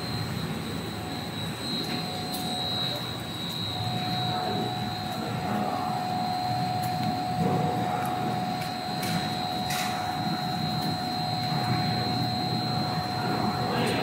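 Twisted dog-chew production line running: a steady mechanical hum of motors and cooling fans under a constant high whine, with a second steady tone joining about four seconds in and a few faint clicks.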